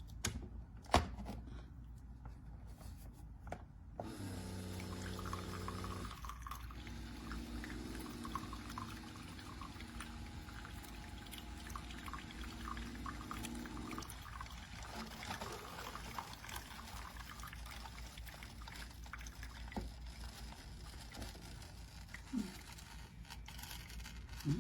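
Liquid pouring and trickling, starting about four seconds in and easing off later, with a sharp click about a second in and a few small knocks.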